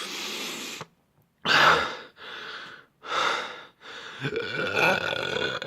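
A man gasping and breathing hard in a series of about five heavy breaths, the last one longer with a throaty tone. He is out of breath from straining to force out repeated burps.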